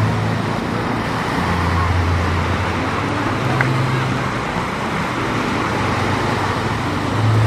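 Steady rush of surf and wind at the water's edge, with a low droning hum underneath that shifts in pitch every second or two.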